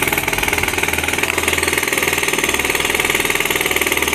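Jackhammer hammering on a concrete roof in a fast, steady run of strokes, breaking it up.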